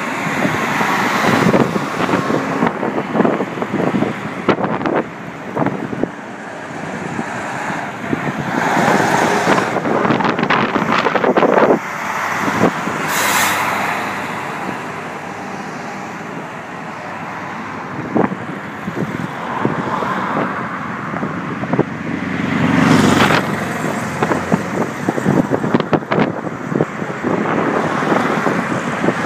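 A convoy of KamAZ six-wheel-drive army trucks driving past one after another, with diesel engines running and tyres on the road, the sound rising and falling as each truck passes. Ordinary cars and a minibus go by near the end.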